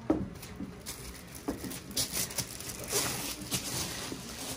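Scattered light taps, shuffling and rustling as a small child climbs onto a chair.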